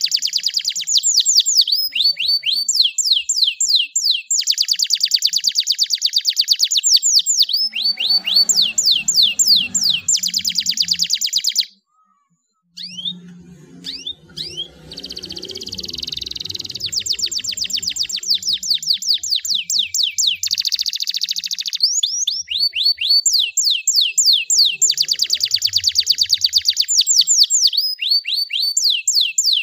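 Domestic canary singing a long, high song of rapid trills, each a fast run of downward-sweeping whistled notes, changing speed from one roll to the next. The song breaks off for about a second near the middle.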